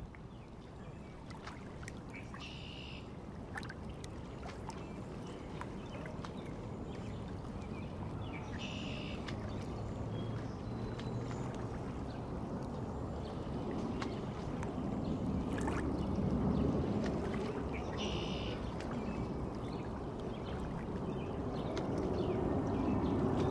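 Harley-Davidson Iron 1200's air-cooled V-twin running on a Stage 1 setup while riding, a low rumble mixed with wind and road noise that grows gradually louder. Three brief higher-pitched sounds come through about 2.5, 9 and 18 seconds in.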